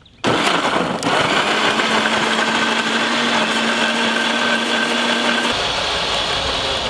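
Electric mixer grinder switched on about a quarter second in, blending peeled rambutan flesh and sugar with no liquid added; its motor runs loud and steady.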